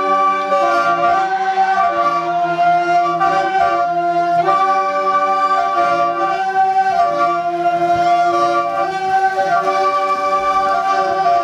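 Background music: an instrumental melody in long held notes over sustained chords.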